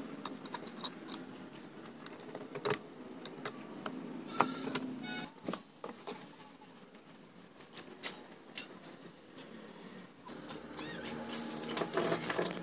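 Scattered light clinks and taps of metal and glass as the parts of a Feuerhand hurricane lantern are handled and its glass globe is fitted back in place.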